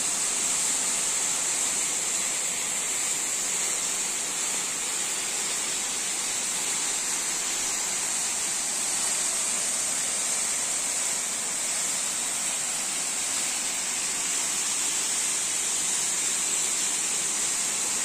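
Large snowmelt-fed mountain waterfall in strong spate: a steady, unbroken rush of falling water with a bright hiss of spray.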